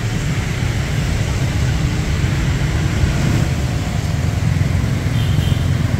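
Steady street traffic noise from motor scooters and cars running past.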